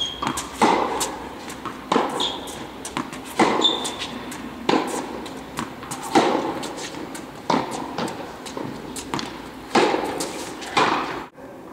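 Tennis rally: the ball is struck by rackets and bounces on the hard court, a sharp pop every second or so, each ringing on in the large hall. Brief high squeaks of tennis shoes on the court come between shots.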